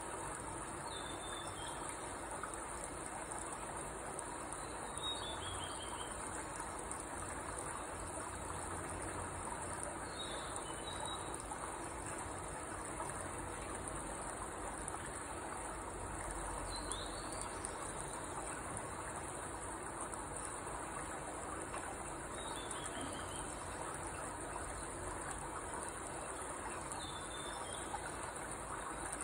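Steady high-pitched insect trilling, like crickets, with a bird giving a short call of falling notes about every five seconds.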